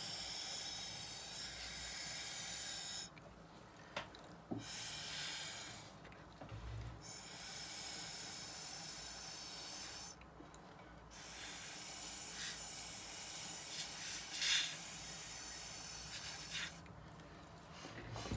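Long breaths blown through a drinking straw to push wet watercolour blots across paper, each a steady airy hiss lasting a few seconds, about four blows with short pauses for breath between them.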